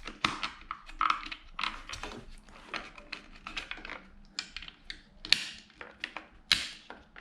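Irregular clicks and taps of small plastic and metal parts being handled and fitted by hand onto a motorcycle handlebar, with two sharper knocks near the end.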